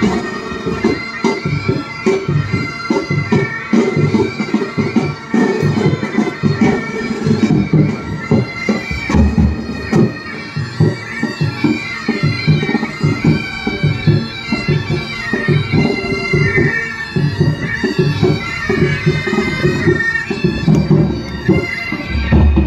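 Military pipe band playing: bagpipes sounding a melody over their steady drones, with drums beating in time underneath.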